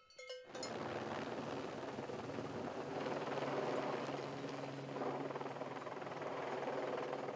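Cowbells clink briefly at the start. Then comes the steady noise of a helicopter hovering low with an underslung water bucket, its rotor and turbine running, mixed with the rush of water pouring out of the bucket.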